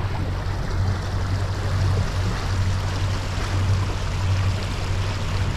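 Sailing yacht's inboard engine running at a steady low drone, with water rushing along the hull as the boat motors along.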